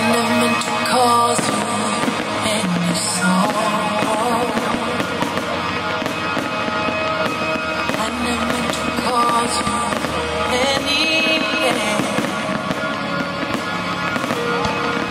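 Fireworks going off in a string of bangs and crackles, mixed with pop music playing throughout.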